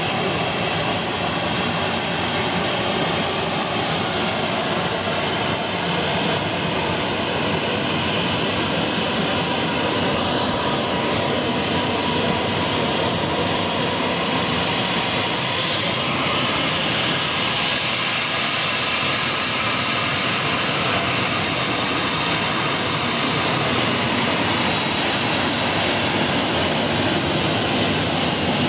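Boeing 737 jet airliner taxiing close by, its two turbofan engines running steadily. A faint thin high whistle joins the engine sound partway through.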